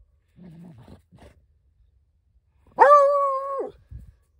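Dog giving a faint, low, brief growl, then about three seconds in one loud, drawn-out bark held at a steady pitch for nearly a second.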